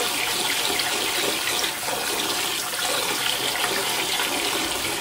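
Kitchen tap running steadily into a stainless steel bowl of rice and water while a hand stirs the rice: rinsing sticky rice to wash the starch out.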